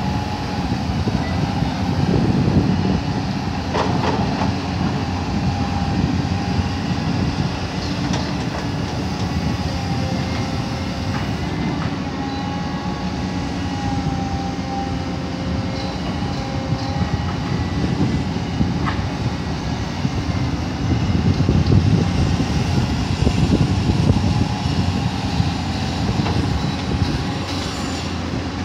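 Caterpillar 320D hydraulic excavator's diesel engine running steadily under load while it digs, with short whining tones coming and going and an occasional knock.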